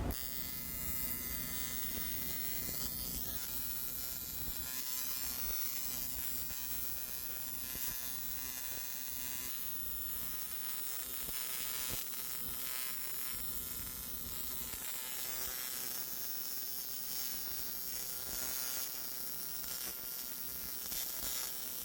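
TIG welding arc buzzing steadily, a high-pitched electric buzz with a hiss.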